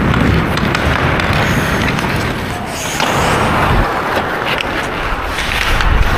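Ice skate blades scraping and carving on the rink as a hockey player skates, with wind rumbling on a helmet-mounted camera's microphone and occasional sharp clicks.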